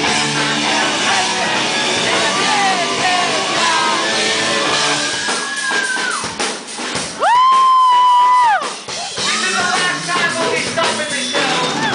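Live rock band playing with singing and drums. About seven seconds in, a loud high-pitched cry right at the microphone slides up, holds one note for about a second and a half, then drops away.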